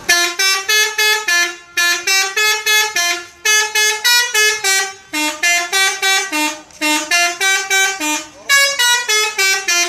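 Telolet horn playing a fast melody: a loud run of short pitched horn notes, several a second, in phrases separated by brief gaps.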